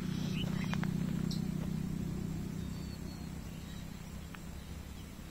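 Low, steady hum of a motor vehicle that slowly fades away.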